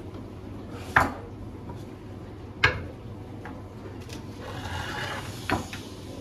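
Ceramic kitchen containers being set down on a hard countertop: two sharp knocks about a second and a half apart, then a short stretch of items sliding on the counter and a lighter knock near the end.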